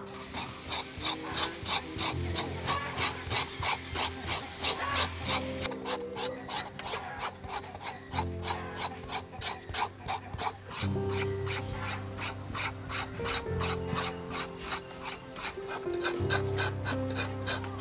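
Serrated knife blade scraping the ridged skin off a sponge gourd (luffa) in quick repeated rasping strokes, about four a second.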